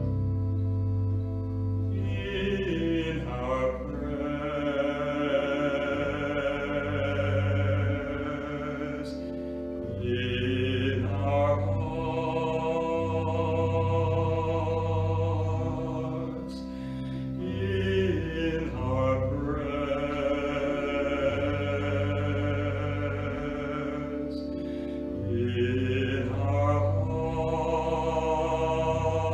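A solo male singer singing a slow prayer song in four long phrases with vibrato, over held keyboard chords.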